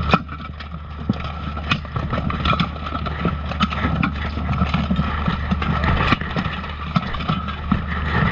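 Clanking of steel plate armour and knocks of weapons, sharp metallic hits about once a second, the loudest just after the start, over a steady low rumble of armour and padding rubbing against a chest-mounted camera.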